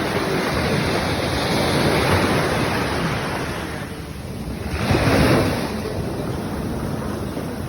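Ocean waves breaking on a beach: a rushing wash of surf that swells about two seconds in, eases, then peaks with a louder wave crashing about five seconds in.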